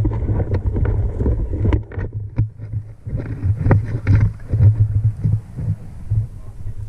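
Wind buffeting the microphone in uneven gusts, with scattered short clicks and rustles.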